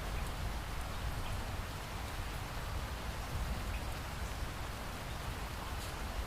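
Heavy rain pouring steadily, with a constant hiss, a deep low rumble and scattered small drop ticks.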